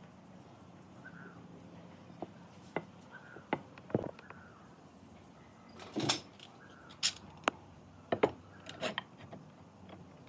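Irregular knocks and taps of wooden pieces and hand tools being handled, about a dozen spread unevenly, the loudest cluster about six seconds in.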